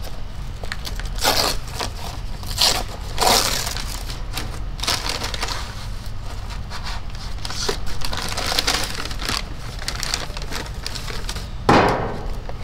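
Paper takeout bag and foil sandwich wrapper rustling and crinkling as the food is taken out, in irregular crackling bursts, the loudest near the end.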